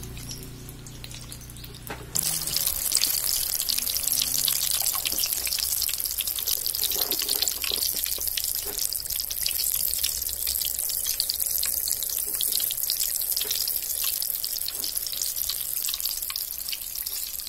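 Battered unripe tomatoes deep-frying in hot oil in a steel kadai: a steady, crackling sizzle that starts suddenly and loudly about two seconds in, as the bajji go into the oil.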